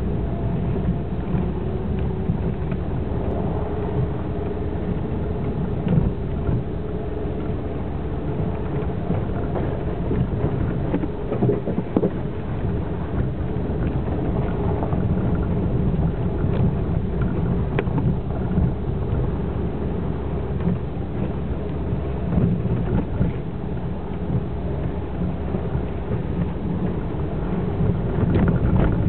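Suzuki SX4 crossover heard from inside the cabin while driving over a snowy, rutted dirt trail: a steady low rumble of engine and tyres with a faint engine hum, broken by occasional knocks and rattles from bumps.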